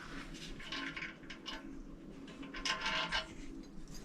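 Faint, irregular rubbing and scraping as parts of a new flush toilet's tank are handled and one piece is worked loose. The scraping is clearest near the end.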